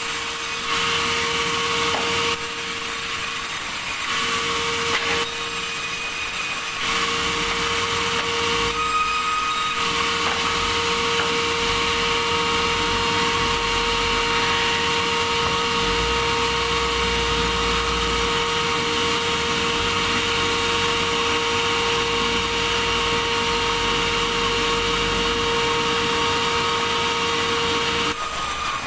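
Sawmill blade cutting steadily through a log, a continuous whine over a hiss of sawing, stopping just before the end.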